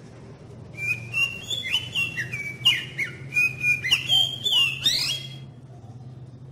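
Caged oriental magpie-robin (kacer) singing a rapid run of loud, clear whistled phrases with sweeping up-and-down notes. It starts about a second in and stops about five seconds in, over a low steady hum.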